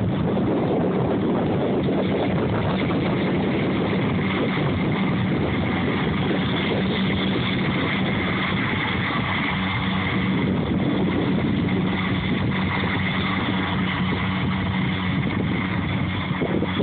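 Large farm tractor's diesel engine running steadily at a constant pitch, driving its front and side hay mowers while mowing.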